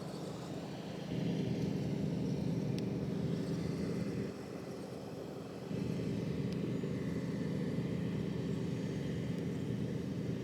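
Massey Ferguson 390 tractor's diesel engine running steadily, its level stepping up about a second in, dropping back for a second or so around four seconds, then rising again.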